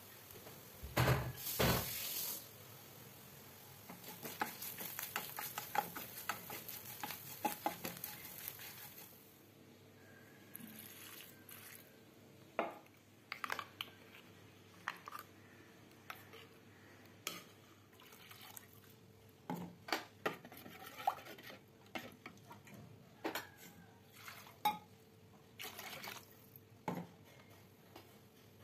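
A wooden spoon stirring and scraping in steel cooking pots, with scattered knocks and clicks against the metal. There is a loud thump about a second in, and a dense run of clicks over a hiss for several seconds after it.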